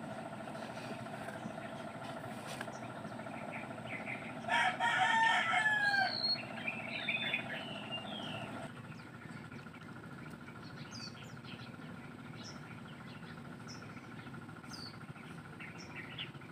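A rooster crows once, loudly, about four and a half seconds in, followed by a few shorter, weaker calls. Under it a steady motor hum runs and cuts off about nine seconds in, and small bird chirps follow.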